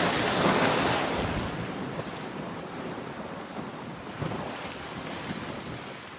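A rushing noise, loudest in the first second and a half, then easing to a softer steady hiss.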